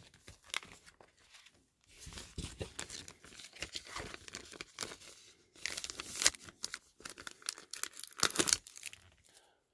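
Thin clear plastic sleeve crinkling and rustling as a graded card slab is slid into it, in irregular crackles, louder a little past halfway and again near the end.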